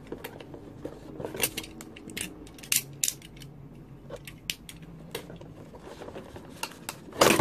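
Plastic toy packaging being handled and pried at by hand: irregular sharp clicks and scrapes, with a louder crackle near the end.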